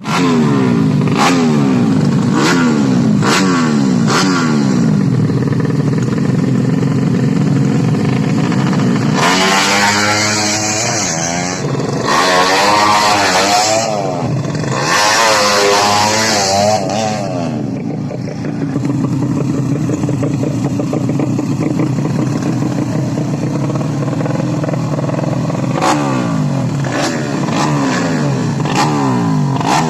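Tuned 130 cc underbone motorcycle engines revving in short throttle blips, then a louder run from about nine to seventeen seconds with several rising sweeps in pitch as an engine winds up through the gears, then steady running with more revs near the end.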